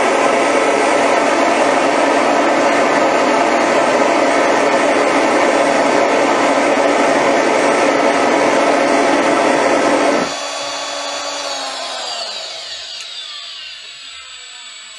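Small homemade jet engine running loud and steady with its exhaust flame lit. About ten seconds in the combustion noise cuts off suddenly as the flame goes out, and the rotor spins down with a falling whine.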